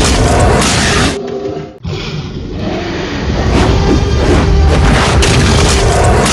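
Loud cinematic effects track of heavy booms and crashes mixed with dramatic music. It drops away briefly between one and two seconds in, then picks up again.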